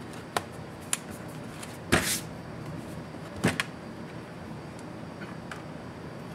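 HP EliteBook x360 1030 G2 laptop's aluminium case being turned over and set down on a work table: a few light clicks, then a sharp knock about two seconds in and another a second and a half later, followed by faint ticks of handling.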